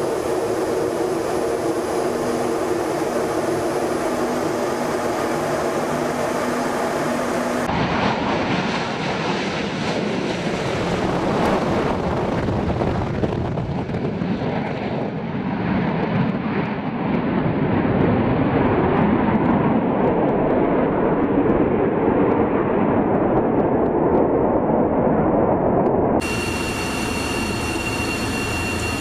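Jet aircraft engine noise in three abruptly joined stretches. First a steady whine with several held tones; then, from about eight seconds in, a broad jet roar that swells in the second half as its high end gradually fades; near the end, another sudden change to engine noise with a high steady tone.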